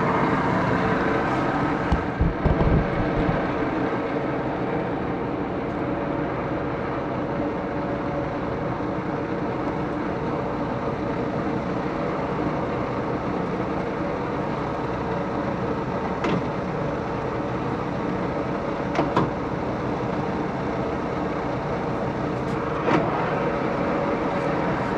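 1941 Axelson 24-speed lathe headstock running steadily, its gear train giving an even whirr with several fixed tones, as the machine is run in after sitting idle for years. A few brief knocks come about two seconds in, and single clicks come later.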